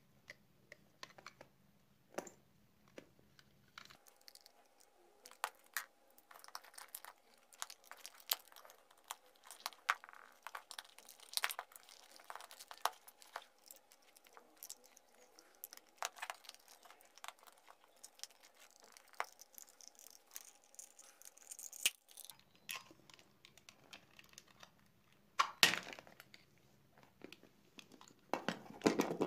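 Plastic telephone handset being taken apart by hand: scattered clicks, scrapes and creaks of plastic and a screwdriver, with two louder cracks near the end as the back cover is prised free.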